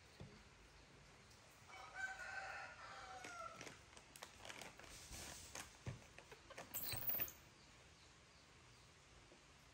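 A single drawn-out animal call, about two seconds long, held level and then dropping in pitch at its end. It is followed by a few seconds of rustling and crinkling, loudest near the end.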